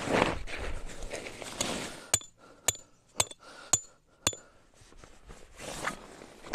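Hammer driving a metal tent stake into the ground: five sharp, ringing metal strikes about half a second apart, after a couple of seconds of rustling.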